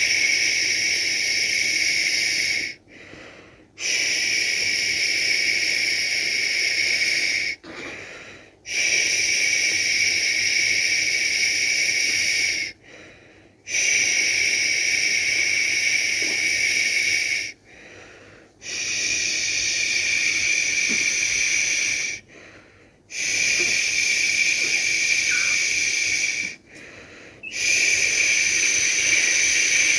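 A person shushing to soothe a baby: long steady 'shhh' sounds of about three to four seconds each, seven in a row, with a short pause for breath of about a second between them.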